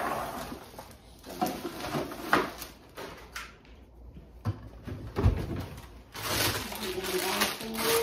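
Plastic garbage bags and bagged food packages being handled, with crinkling and rustling, scattered knocks, and a dull thump about five seconds in.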